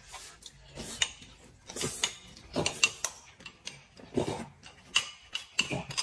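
Close-up eating sounds: noodles being slurped and chewed, mixed with irregular clicks of a spoon against a glass bowl.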